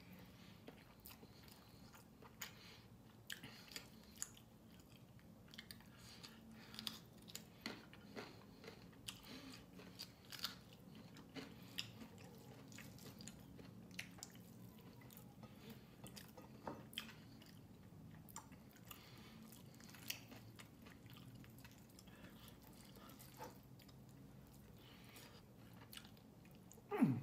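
Close-up eating sounds: chewing and small wet mouth clicks, scattered and irregular, as chicken adobo and rice are eaten by hand, over a faint low hum. A brief voice sound, falling in pitch, comes at the very end.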